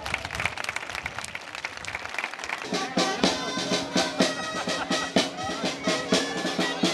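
Crowd noise with clapping. About three seconds in, a band of gralles (Catalan shawms) and drum starts playing, the gralles holding sustained reedy notes over steady drum beats.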